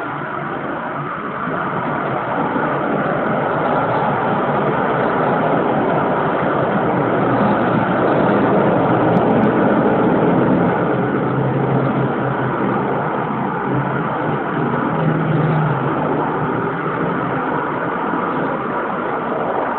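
Motor-vehicle engine and road-traffic noise, a steady rumble that swells to its loudest around the middle and then eases off.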